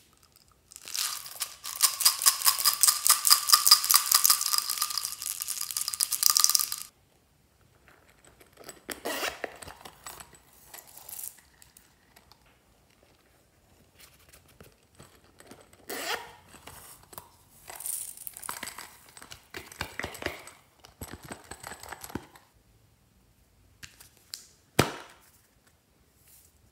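Small beads rattling hard in plastic shaker bottles for about six seconds as they are shaken out onto slime. After that come scattered bursts of plastic handling and crinkling, with one sharp click near the end.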